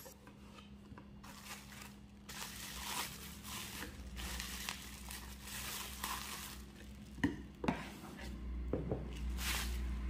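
Black plastic bubble wrap crinkling and rustling as it is pulled off a porcelain teacup, followed by a few short light knocks near the end.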